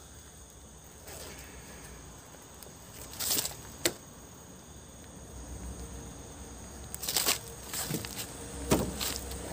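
Steady high trilling of night insects, with a few short crunches and rustles of dry leaf litter as people shift on the ground and a plastic water bottle is set down, about three seconds in and again several times near the end.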